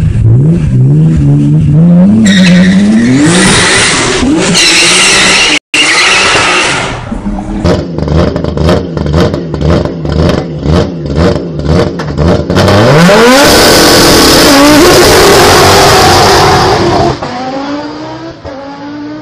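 A BMW E46 3 Series Touring's engine revving repeatedly through its quad exhaust. Then an Audi Sport quattro S1 rally car idles with sharp exhaust bangs about twice a second, and its turbocharged five-cylinder engine revs up as the car launches and pulls away at full throttle, fading near the end.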